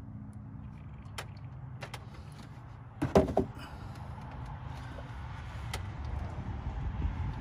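A plastic motor-oil jug set down on a plastic engine cover with a quick double knock about three seconds in, over a low steady background hum, with a few faint clicks before it.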